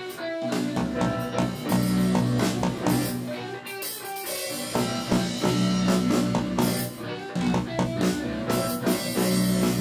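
Live band playing a rock-style instrumental passage, with guitar, keyboards, bass and a drum kit.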